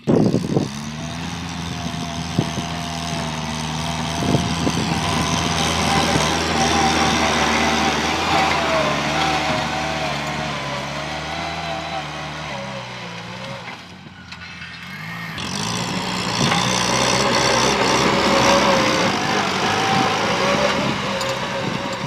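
Kubota farm tractor's diesel engine running steadily under load while pulling a disc plow through dry soil. It dips briefly in the middle of the clip, then grows louder as the tractor comes close.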